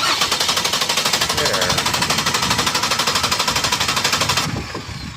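Car starter motor cranking the engine, energised by a paperclip bridging the pulled starter relay's socket: a loud, fast, even pulsing that stops suddenly after about four and a half seconds. The cranking shows the starter itself is good.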